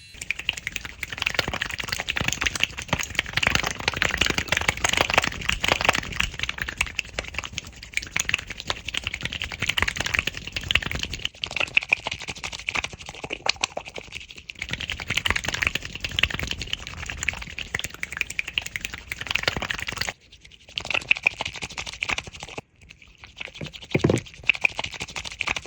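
Wet squelching: a dense, rapid run of small wet clicks and crackles, stopping briefly twice near the end.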